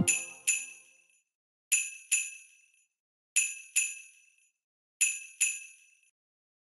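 A small metal bell rings in pairs of strikes, ding-ding, four pairs evenly spaced about a second and a half apart. Each strike is bright and high and dies away quickly.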